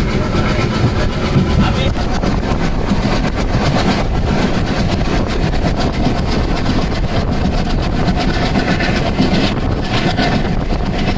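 Indian Railways general-class passenger coach running at speed, heard at its open doorway: a steady loud noise of wheels on the rails with a fast, dense rattle of clicks.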